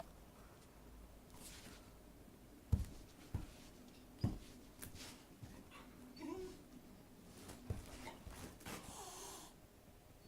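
A dog breathing noisily, with a few dull knocks in between.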